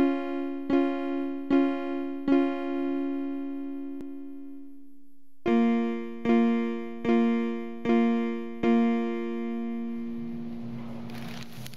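Electric piano playing a simple chord pattern, one chord struck a little faster than once a second. That chord is then left to ring and fade, and a second chord is struck the same way. Faint background hiss comes in near the end.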